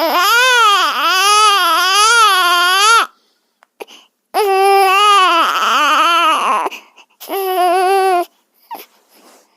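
Baby crying sound effect: three loud wails, the first about three seconds long, each with a pitch that wavers up and down, with short gaps between them.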